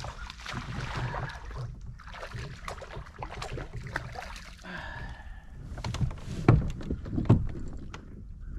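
Fighting and landing a small bass at a kayak: scattered splashing and handling clatter, with two sharp knocks, the loudest sounds, about six and a half and seven seconds in.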